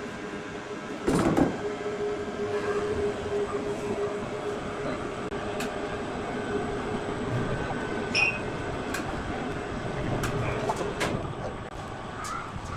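Large horizontal band sawmill running with a steady mechanical hum holding one tone, with a loud knock about a second in and scattered sharp clicks and knocks.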